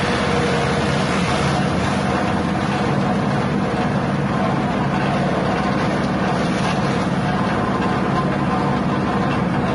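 Elephant-grass chopper machine running steadily, its motor driving the chopper blades as grass stalks are fed into the side chute and chopped.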